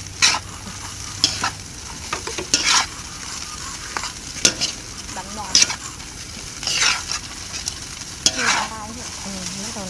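Fried rice sizzling in a large pan while a spatula scrapes and tosses it, about one scrape every second.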